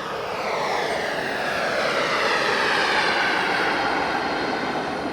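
Radio-controlled model airplane flying past, its engine whine falling steadily in pitch as it passes, loudest about halfway through.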